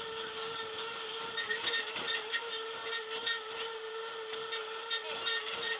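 Boardwalk tram car moving along the wooden boardwalk: a steady mid-pitched whine over a rolling noise, with light clicks and clatter scattered through it.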